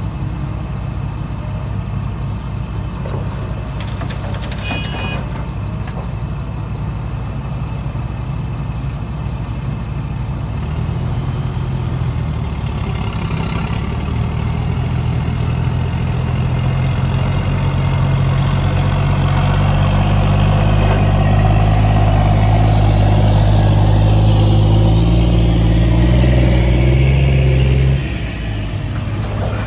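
Heavy diesel engine of construction machinery running, working harder and louder through the middle of the stretch, then easing off suddenly near the end. A brief high tone sounds about five seconds in.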